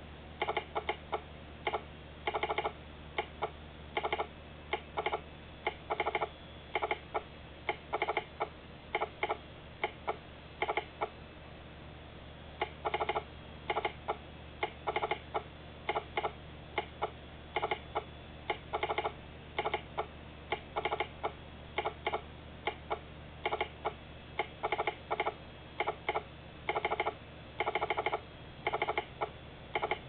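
Telegraph sounder clicking out American Morse code at 15 words per minute, in clusters of sharp clicks with short pauses between letters and words, spelling the names Westin, Dakota and Joshua.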